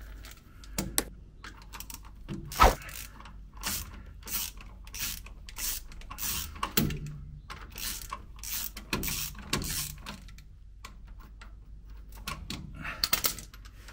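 Ratchet wrench clicking as bolts are undone, in a run of short strokes at roughly one or two a second.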